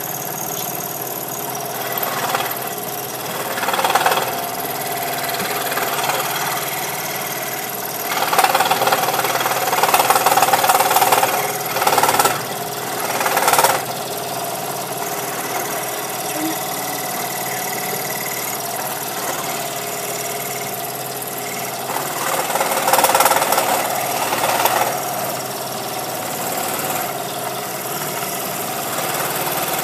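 Scroll saw running steadily, its blade reciprocating with a fast mechanical chatter, cutting through a wooden intarsia piece. It grows louder for short stretches a few seconds in, through the middle and again near the end as the blade bites into the wood.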